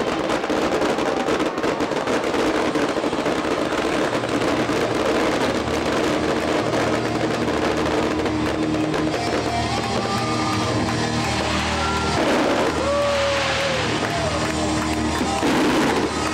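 Fireworks crackling and popping over the first few seconds, with music playing throughout; the music carries on alone once the bursts die away.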